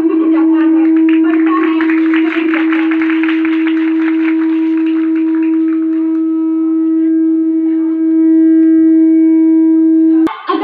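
Microphone feedback through a public-address system: one steady howling tone held at a fixed pitch. A dense crackling noise runs under it for the first few seconds, and the tone cuts off suddenly just before the end.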